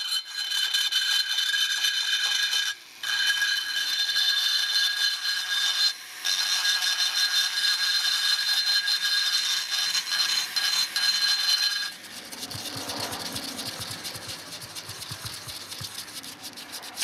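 Flex-shaft rotary tool (Foredom-type handpiece) spinning a burr against the aluminium engine case, a steady high-pitched whine over a grinding hiss as it cuts and blends the transfer port, with two brief breaks. About twelve seconds in it gives way to quieter hand sanding, sandpaper rubbing back and forth over the ported metal.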